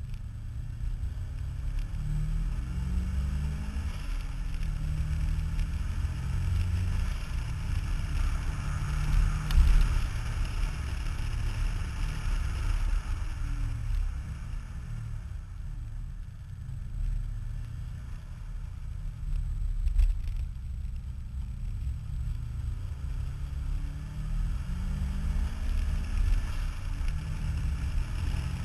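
A Subaru driving on the road, heard from a camera suction-mounted on the outside of the door: a deep, steady rumble of wind buffeting and engine and road noise, the engine note slowly rising and falling as the car speeds up and eases off. The rumble swells loudest about ten seconds in.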